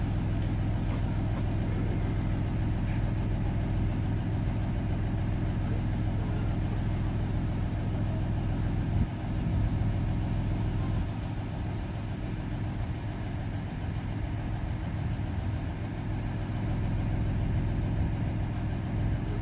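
Small railway locomotive's engine idling steadily with a low, even hum, dropping a little in level about halfway through.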